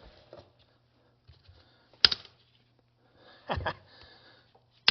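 A few sharp metal knocks and clicks of tools working the gland nut of a concrete pump's slewing cylinder loose: one about two seconds in, a quick pair about a second and a half later, and another at the very end, over a faint low hum.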